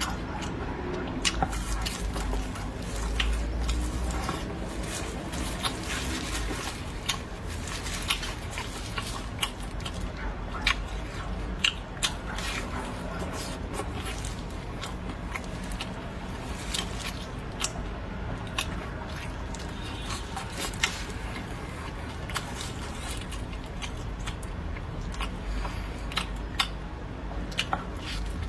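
Someone chewing and eating close to the microphone: frequent sharp mouth clicks and wet smacks over a low steady hum.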